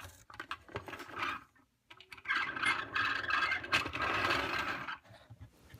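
Plastic toy train cars being handled and coupled: a few small clicks, then about three seconds of plastic scraping and rattling.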